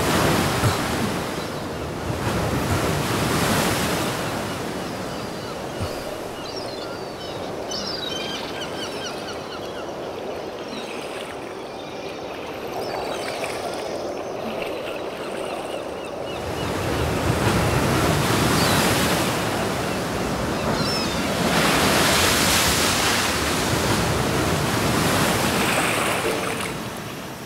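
Sea surf washing and breaking against shoreline rocks, swelling and ebbing, with louder surges near the start and again in the second half.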